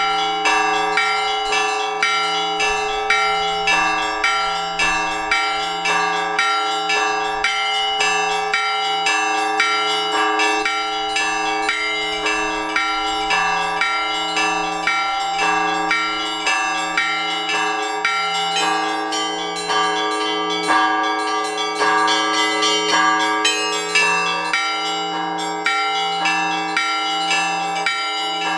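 Orthodox church bells of several sizes rung together in a steady, rapid rhythmic peal: small bells strike quickly over the ringing hum of larger bells. About two-thirds of the way through, the pattern briefly changes and the higher bells come forward.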